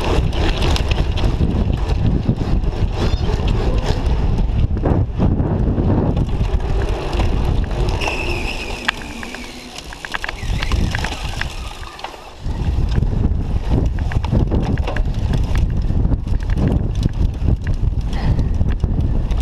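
Cyclocross bike ridden hard over rough dirt and grass, the frame and components rattling and knocking over bumps, with wind buffeting the microphone. The noise drops away for a few seconds past the middle, then comes back all at once.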